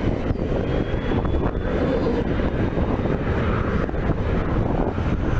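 Wind buffeting the microphone in a steady low rumble, over the engines of distant business jets running as they taxi. A faint high whine comes through in the first two seconds.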